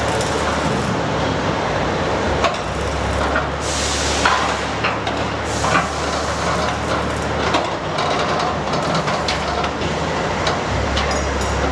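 Steady machine noise with a low hum that drops out and returns, and scattered knocks and clanks.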